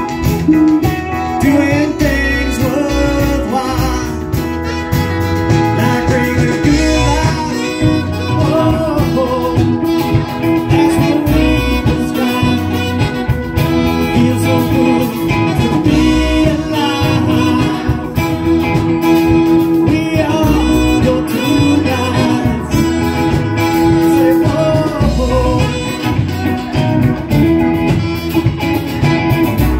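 Live band playing a song: electric guitars, acoustic guitar, keyboard and drums with a steady beat, and a singer.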